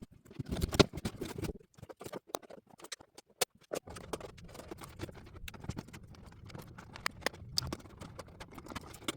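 Packaging being handled as a boxed model horse is unpacked: an uneven run of crackles, scrapes and taps from cardboard and plastic, with a low rumble under it from about four seconds in.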